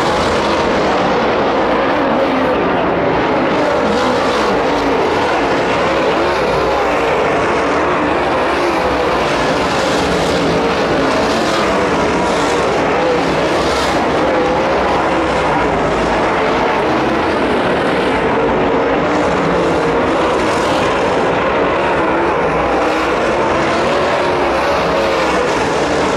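Dirt late model race cars' V8 engines running hard under racing, a loud, continuous drone whose pitch wavers slightly as the cars circle the track.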